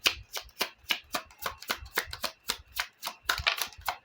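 Tarot deck being shuffled by hand: a quick run of crisp card slaps and flicks, about four a second.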